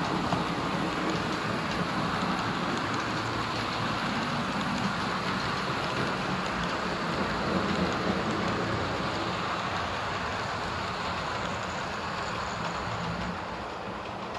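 Model train running through a station: a diesel locomotive and its coaches rolling on the track, a steady hiss and rumble of wheels on rails that eases off near the end as the train passes.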